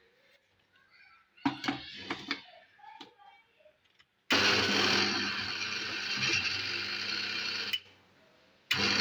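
Electric kitchen mixer grinder running, grinding ginger and garlic with a little water into paste. The motor starts about four seconds in, stops briefly near the end, and starts again in short pulses.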